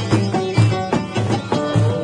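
Music in a Middle Eastern folk style: plucked strings and held melody notes over a steady drum beat.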